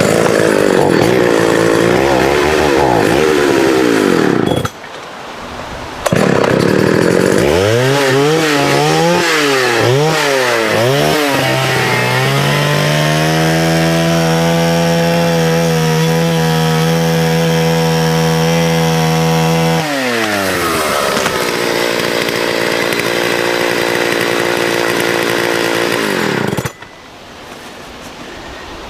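Vintage 1979 Partner S-55 two-stroke chainsaw making the back cut on a tree. It runs hard, dips briefly about five seconds in, then revs up and down several times. It is held at a steady high pitch for several seconds, drops to a lower steady run, and cuts out near the end.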